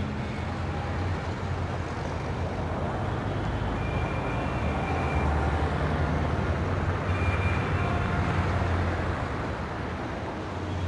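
City street traffic: a steady low drone of car engines and passing vehicles, with a few faint higher tones now and then.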